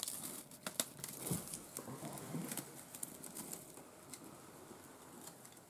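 Gift-wrapping paper and ribbon rustling and crinkling as hands untie the bow on a wrapped present: scattered crackles, busiest in the first few seconds and thinning out toward the end.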